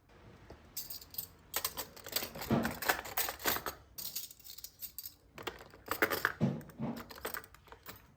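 Tableware being handled: a steady run of small metallic clinks and clicks, with a couple of duller knocks as pieces are set down.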